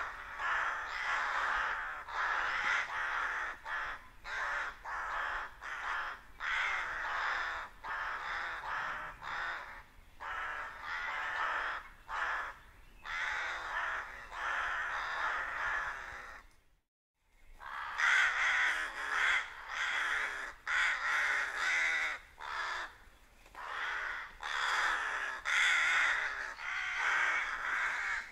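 Many rooks cawing together, harsh calls overlapping without pause. The sound cuts out completely for about half a second a little past the middle.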